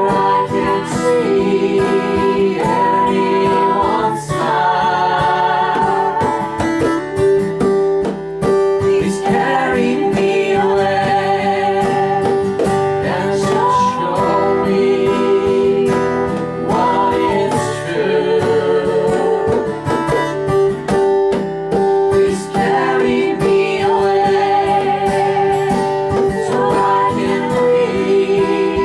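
Folk band playing: acoustic guitar strumming under a sustained fiddle melody with vibrato.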